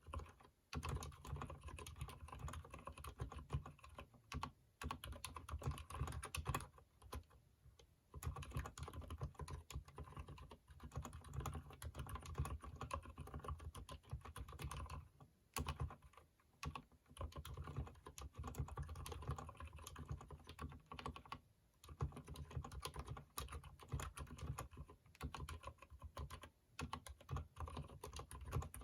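Typing on a Durgod mechanical keyboard with lubed Cherry MX Silent Red switches: a steady run of rapid keystrokes, broken by a few short pauses.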